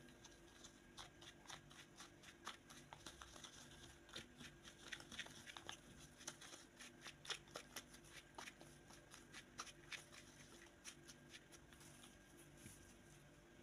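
Plastic spoon stirring a thick, wet herbal paste in a plastic bowl, scraping and tapping the sides in a quick, irregular run of small clicks.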